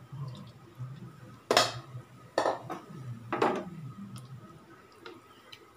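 Washed rice tipped from a steel vessel into an aluminium pressure cooker of tomato masala and water, with three sharp metal clanks about a second apart as the vessel knocks against the cooker.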